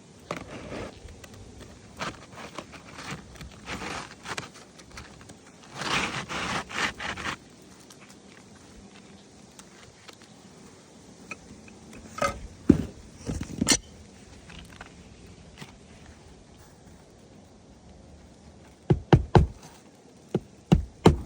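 Asphalt roof shingle being worked loose and scraped at by hand for a repairability test, in irregular scrapes and knocks; a dense run of scraping comes about six seconds in, with sharper knocks twice later on.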